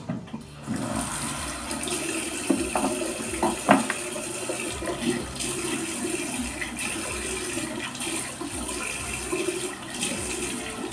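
Bathroom sink tap running, with a few splashes and knocks as water is scooped up to rinse during a wet shave; the flow starts just under a second in.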